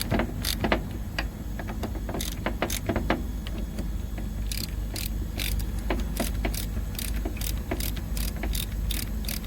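Sharp metallic clicks and clinks over a steady low hum, irregular at first and coming about twice a second in the second half.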